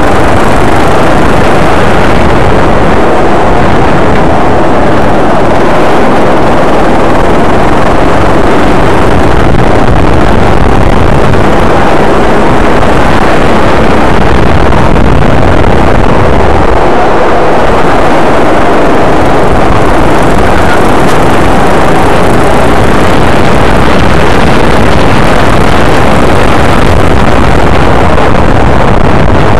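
Go-kart engine running continuously at speed through a lap, picked up by a camera mounted on the kart itself, very loud and at the recording's limit throughout.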